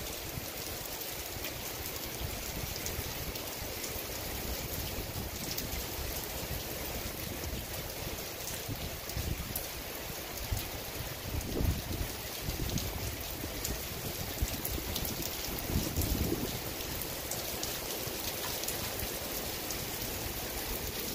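Steady rain falling on a wet parking lot and parked cars: an even hiss with scattered drop ticks. A couple of brief low rumbles or gusts come partway through.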